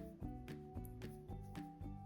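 Background music: soft instrumental notes.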